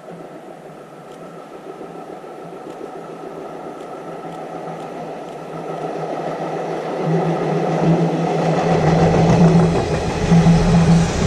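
E351 series limited express electric train approaching and running past along the platform, its hum and rail noise growing steadily louder. A deep rumble comes in about eight seconds in as the cars draw alongside.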